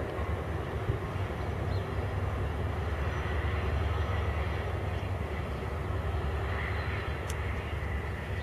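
Steady low rumble of a passing train, with no horn or distinct events.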